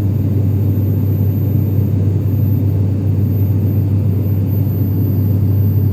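Steady low drone of a passenger plane's cabin in flight, unchanging throughout.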